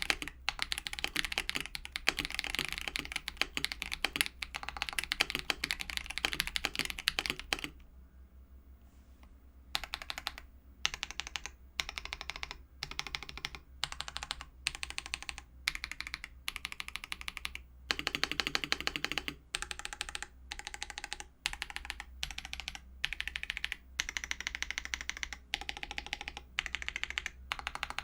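Typing on a mechanical keyboard fitted with lubed Akko CS switches. Fast, continuous keystrokes for about eight seconds, then a short pause, then typing resumes in short bursts of keystrokes with brief gaps between them.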